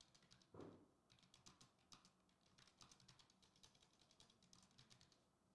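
Faint rapid typing on a computer keyboard: quick, uneven key clicks, with one soft thump about half a second in.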